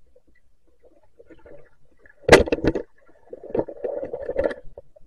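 Muffled underwater splashing and bubbling, heard through a waterproof camera housing, with clicks and knocks: one sharp burst about two seconds in, then a longer churning stretch a little over a second later.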